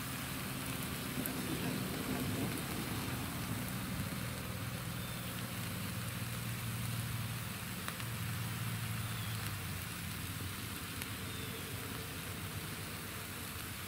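Steady outdoor background: an even hiss under a low droning hum that eases off near the end, with a few faint high chirps.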